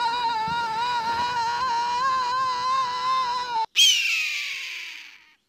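A man's long, held scream at a nearly steady pitch with slight wavers, cut off abruptly about three and a half seconds in. A shriller cry follows, falling in pitch and fading away over about a second and a half.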